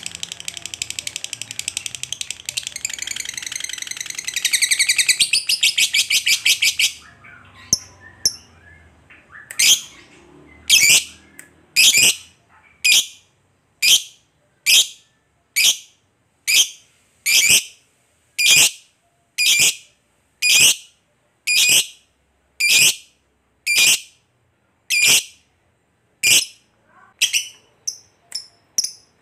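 Lovebird giving a long, very rapid chattering trill (the 'ngekek' call) for about seven seconds, getting louder toward its end. After a short pause it switches to single sharp, high chirps about once a second.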